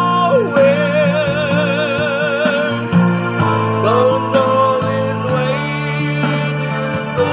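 A man singing a slow pop ballad into a handheld microphone over a karaoke backing track, holding two long notes with a wide vibrato.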